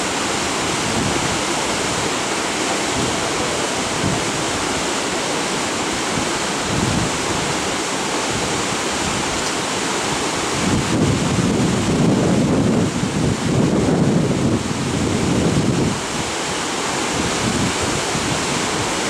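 Wind buffeting the camera microphone: a steady rushing noise with a stronger, rumbling gust from about eleven to sixteen seconds in.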